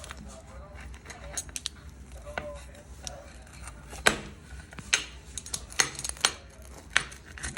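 Kitchen utensils clinking and knocking against dishes: a string of sharp, separate clicks, the loudest about four seconds in, over a low steady hum.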